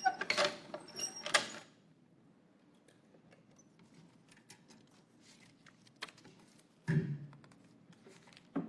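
Wooden lottery drum turned by hand, its contents rattling and clacking for about a second and a half. Then quieter handling at the drum, with small clicks and one dull knock about seven seconds in.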